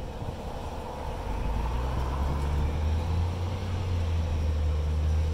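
Street traffic: a motor vehicle's engine rumbling low and steady close by, growing louder about a second and a half in and holding.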